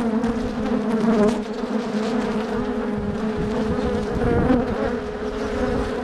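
Honeybees buzzing around an opened hive: a steady drone close to the microphone.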